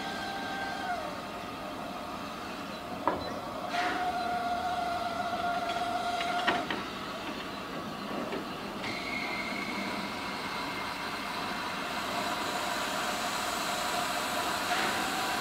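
Steam locomotive standing with a steady hiss of steam, broken by a few sharp clanks about three, four and six and a half seconds in, with faint steady tones that come and go.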